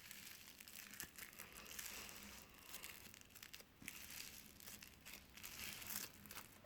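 Faint, irregular crackling and squishing as slime mixed with polystyrene foam beads is kneaded by hand.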